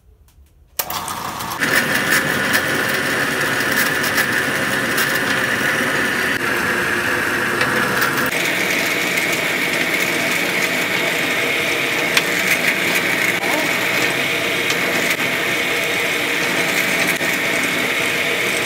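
Drill press running with a 1/4-inch bit, boring through two pieces of wood taped together. It starts about a second in, runs loud and steady, and its pitch steps up about eight seconds in.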